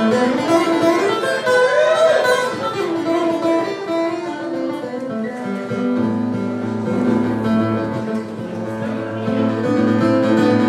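Acoustic guitar playing a tune, with held notes from a Roland RD-700 stage piano underneath.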